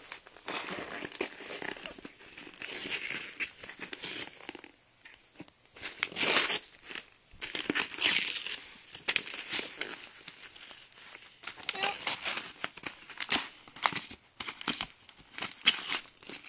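A USPS Priority Mail envelope crinkling and rustling as it is handled and shaken, with the bagged airsoft BBs inside shifting. It comes in uneven bursts, the loudest a little past the middle.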